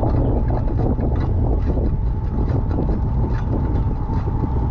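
Steady low wind rumble buffeting the microphone of a camera riding along on a gravel bike, with the irregular crackle of tyres on a wet gravel road.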